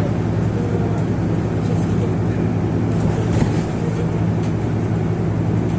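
Steady low drone of a running road vehicle, unchanging in level.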